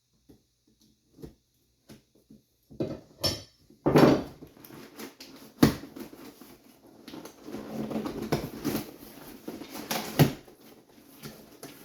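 A package being opened by hand: scattered small clicks, then a few sharp knocks and a stretch of rustling and scraping of packaging.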